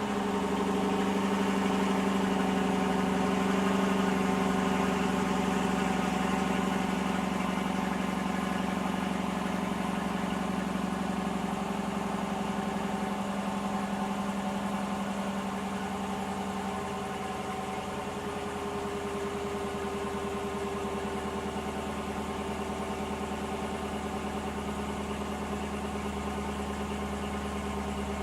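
2018 Dodge Durango R/T's 5.7-litre HEMI V8 idling steadily through its stock exhaust just after a cold start. The idle eases down a little about two-thirds of the way through as the fast cold idle settles.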